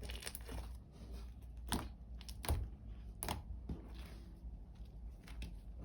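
Homemade glue slime squeezed and stretched by hand, giving scattered sticky clicks and crackles, about five in all.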